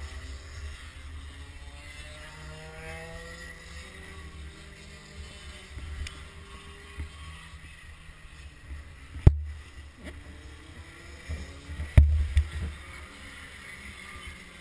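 Distant kart engines revving on the track, heard as faint rising and falling whines over a low wind rumble on the microphone. Two sharp knocks, about nine seconds in and about twelve seconds in, the second followed by a few smaller ones, are the loudest sounds.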